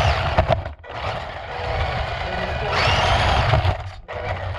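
Electric RC car driving hard, heard from a camera mounted on the car: the motor's whine rises and falls with the throttle over a steady rumble of tyres on paving slabs. The sound drops away briefly twice, under a second in and near the end.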